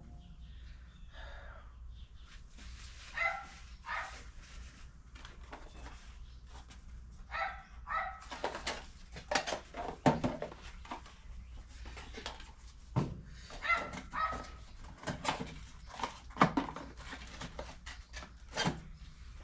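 A dog giving short whines and yips, several times, among sharp clicks and knocks.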